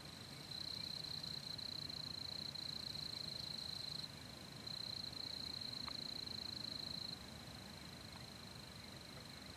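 Insects trilling in one steady, high-pitched buzz, louder for two stretches of a few seconds each and softer in between.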